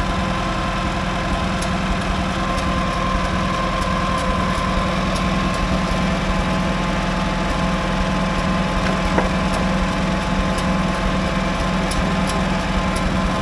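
International 340 crawler's engine running steadily at an even speed.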